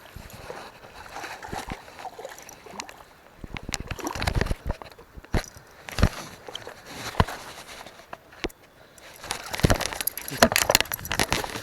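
Water splashing and sloshing, broken by scattered sharp knocks and clicks, growing busier and louder over the last few seconds.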